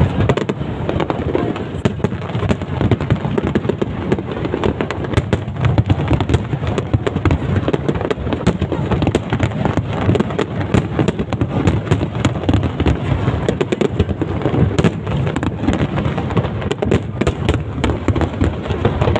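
Fireworks display: a dense, continuous barrage of bangs and crackling with no pause.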